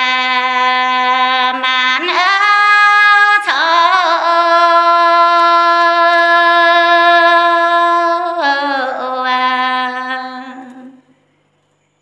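A woman singing a Red Dao song unaccompanied, holding long drawn-out notes that step up in pitch and back down again. The voice fades away near the end.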